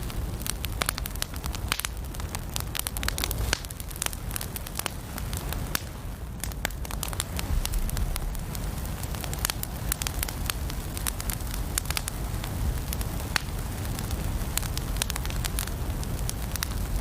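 Wood fire burning in a fireplace: frequent sharp crackles and pops at irregular intervals over a steady low rumble of flames.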